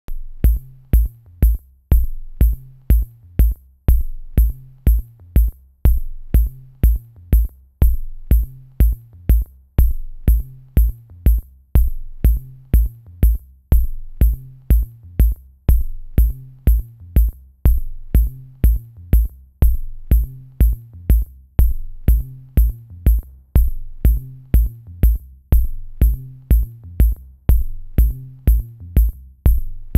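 Electronic background music with a drum-machine beat: a steady kick drum about twice a second under crisp high ticks and a low bass line. It starts suddenly at the beginning.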